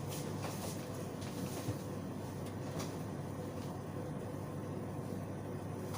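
Steady low machine hum with a faint constant tone, broken by a few light clicks.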